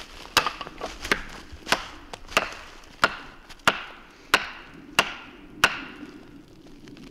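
A hardwood stick struck against a standing tree trunk: about nine sharp wooden knocks at an even pace, roughly two-thirds of a second apart, each ringing briefly. It is deliberate tree knocking, a signal knock of the kind used to call a Bigfoot.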